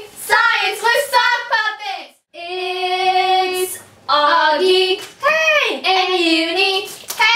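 A high voice singing a short tune in phrases, with one long held note about two and a half seconds in.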